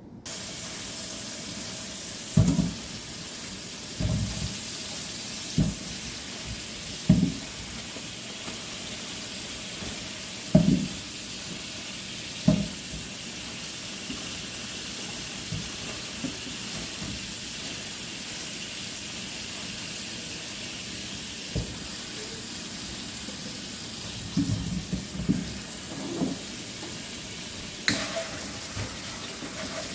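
Kitchen tap turned on just at the start and running steadily into a sink, with a dozen or so irregular knocks and thumps over it, as potatoes are peeled and handled at the sink.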